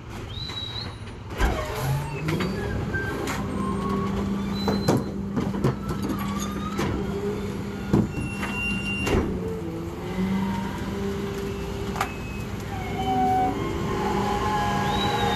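Rear-loader garbage truck engine speeding up about a second and a half in and held at a steady higher speed, as it does to drive the packer hydraulics, with the engine dipping briefly near the middle. Over it, repeated thuds and clanks of trash bags being thrown into the steel hopper.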